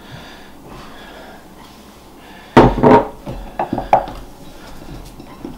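A kitchen dish set down with a sudden loud clatter about halfway through, followed by a few lighter knocks.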